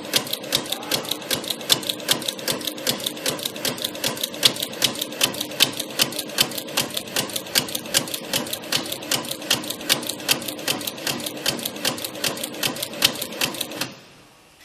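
Automatic stator slot-insulation paper inserting machine running, an even rapid clacking at about five strokes a second over a steady mechanical hum as it feeds paper liners into the stator slots. It stops suddenly near the end.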